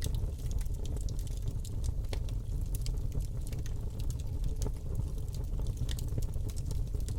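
Wood fire burning in a fireplace: a steady low rumble of the flames with frequent small crackles and pops scattered irregularly throughout.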